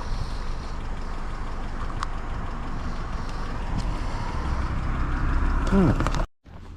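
Car engine running steadily at idle, with a short falling tone near the end before the sound cuts off suddenly.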